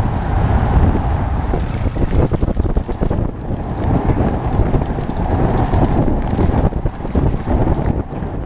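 Wind buffeting a helmet camera's microphone during a fast mountain-bike descent on a rough dirt road, with frequent knocks and rattles from the bike over the bumps.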